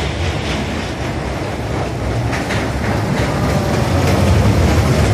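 Small caterpillar-themed kiddie roller coaster train rumbling along its steel track as it passes close by, getting louder toward the end, with a faint falling whine.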